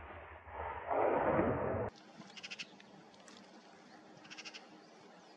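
A wild boar squealing for about a second just after being hit by a rifle shot. Then, after a cut, a quiet outdoor background with two brief bursts of faint, rapid high chirps.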